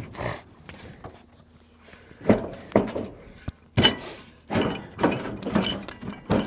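Rusty sheet-metal air cleaner cap on an old diesel engine being pushed and twisted down onto its housing, metal scraping and knocking on metal in several short bouts, with one sharp click in the middle.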